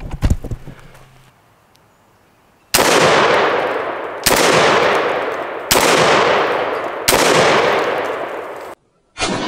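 Four shots from a Garaysar Fear 116 semi-automatic 12 gauge shotgun, fired about a second and a half apart, each followed by a long echo that fades out.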